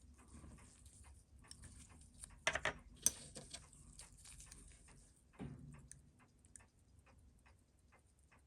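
Faint, even ticking at about three a second, with sharper small clicks about two and a half and three seconds in and a duller knock a little past five seconds. These are small parts and tools being handled on a watchmaker's bench during a chronograph service.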